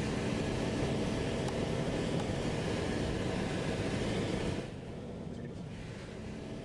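Loud, steady rushing noise of wind on the microphone, with a low rumble underneath. About four and a half seconds in it drops abruptly to a quieter, duller rush.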